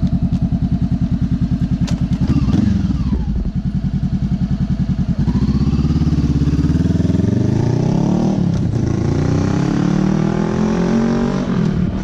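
A 2013 Honda CBR500R's parallel-twin engine through a Coffman shorty slip-on exhaust, idling with an even beat and blipped once about two seconds in. The bike then pulls away, revs rising, dipping about eight and a half seconds in, then rising again.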